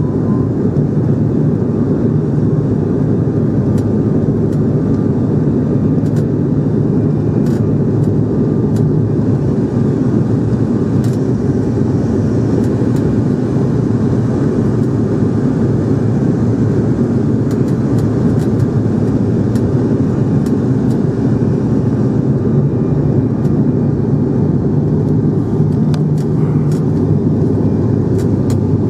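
Steady low drone of a passenger airliner's engines and rushing air, heard inside the cabin during the approach to landing, with a constant low hum under it.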